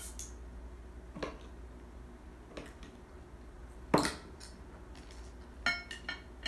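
A metal bottle opener clicking against the crown cap of a glass soda bottle. The loudest sharp click, about four seconds in, is the cap being prised off. Near the end come two ringing glass clinks as the bottle is tipped over a drinking glass.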